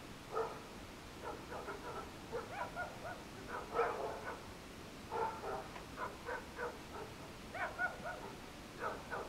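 Dogs barking in short runs of barks, roughly one run every second, over a steady background hiss.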